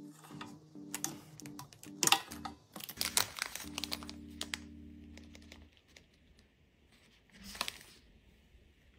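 Thin plastic treat bags crinkling and crackling in irregular bursts as they are handled, over soft background music. The music stops about six seconds in, and one more crinkle comes near the end.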